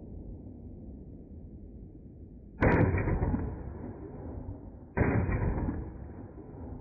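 Semi-automatic pistol firing: two sharp reports about two and a half seconds apart, each with a ringing tail.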